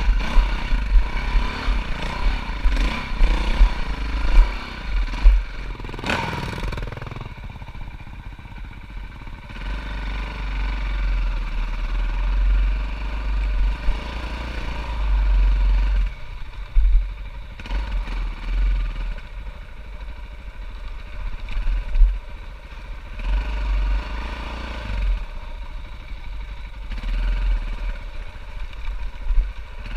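Four-stroke dirt bike engine on a rough trail, the revs rising and falling as the throttle is worked, with a sharp burst about six seconds in. Low, gusty rumble, likely wind buffeting the microphone, runs under it.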